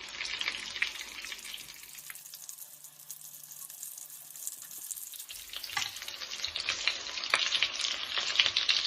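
Breaded chicken nuggets sizzling and crackling in hot oil in a frying pan. The crackle dies down to a faint sizzle for a few seconds midway, then builds back up and grows louder near the end.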